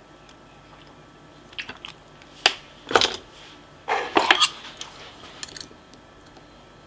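Steel lock-picking tools clicking and scraping against the pins in a pin-tumbler challenge lock's keyway while it is being picked: scattered sharp metallic clicks in several short clusters, the loudest about three seconds in.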